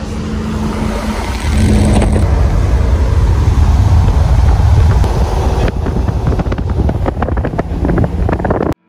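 A motor vehicle driving with its engine running loud, pulling harder about a second and a half in. From about six seconds on, quick clicks and rattles sound over the running noise. It cuts off suddenly near the end.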